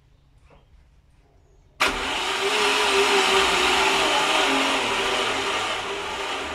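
Starter motor cranking a Honda D15Z4/D16Z6 SOHC VTEC four-cylinder with its spark plugs out and the distributor unplugged, so it spins freely without compression or firing, to prime the oil pump and filter. It starts suddenly about two seconds in, runs steadily for about five seconds, and eases off a little toward the end on a weak battery.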